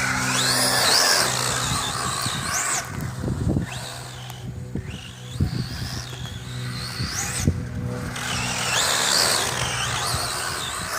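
Radio-controlled short-course trucks driving off-road, their motors whining high and rising and falling with the throttle, with scattered knocks and scrapes from the trucks on the ground. A steady low hum runs underneath.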